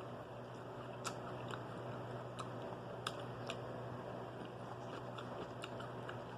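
A person chewing a mouthful of food close to the microphone, with irregular crisp crunches and mouth clicks over a steady low hum.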